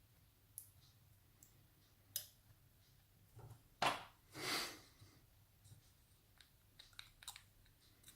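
Small metallic clicks and scrapes of a shim being worked into a picked padlock to release its core, with a sharp click about two seconds in, a louder click near four seconds followed by a short scrape, and a few light clicks near the end.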